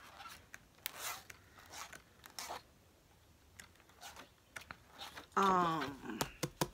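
Paper pages of a spiral-bound booklet being flipped: two short papery swishes, then a few light ticks and taps. A brief hummed vocal sound comes in near the end.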